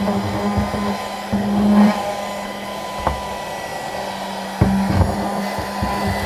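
Small 12-volt car vacuum cleaner running with a steady whine. A lower hum cuts in and out several times, with knocks and bumps from the unit being handled.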